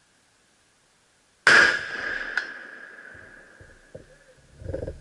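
A single .30-06 rifle shot about a second and a half in: one sudden, very loud crack that rings out and fades over a couple of seconds. A second, sharper crack follows under a second later, and a few small knocks and clatter come near the end.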